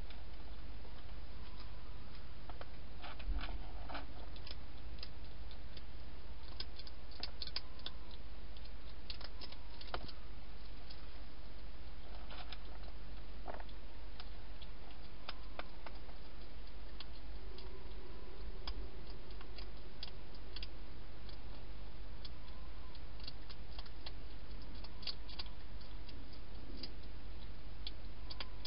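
Wild hedgehog eating inside a plastic feeding box: irregular crunching clicks as it chews, in small clusters with pauses between. A steady low hum runs underneath.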